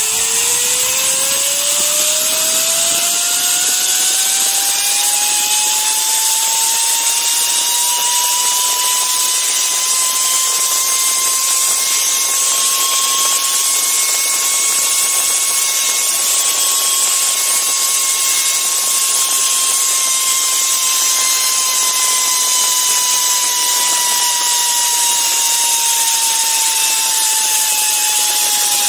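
Zipline trolley's pulley wheels running along the steel cable: a whine that climbs in pitch over the first ten seconds or so as the rider gathers speed, holds steady, then slowly sinks near the end as he slows, over a steady rushing hiss.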